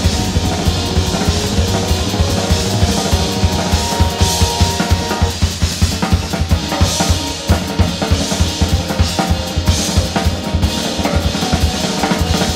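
Live band music led by a busily played Sonor drum kit, with rapid bass-drum and snare strokes over sustained notes from the other instruments.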